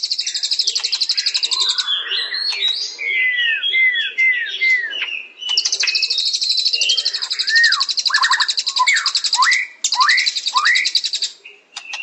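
Songbird singing: a fast, high trill for about two seconds, then a run of short slurred whistles, then a longer trill of about six seconds with swooping whistled notes beneath it, and more short notes near the end.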